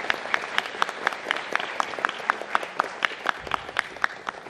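Audience applause. One person's claps ring out close to the microphone at a steady rate of about four a second over the crowd's clapping.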